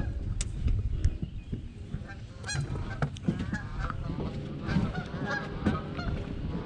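Geese honking, a rapid string of calls starting a little over two seconds in, over a steady low rumble. A few sharp clicks come before the calls.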